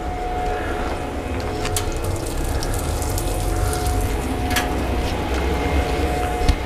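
Pellet grill running: a steady low hum with a constant whine from its fan, and a few light clicks.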